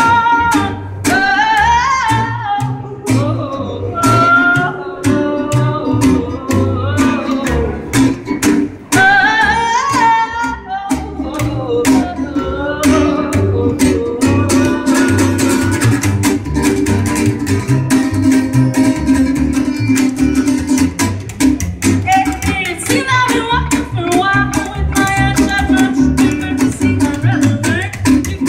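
Folk duet: a steel-string acoustic guitar strummed and an upright double bass plucked, with a woman singing the melody.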